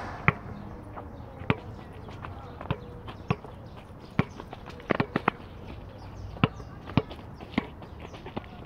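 A basketball bouncing, about a dozen single bounces at uneven intervals of roughly a second, with three in quick succession a little past halfway; the first bounce is the loudest.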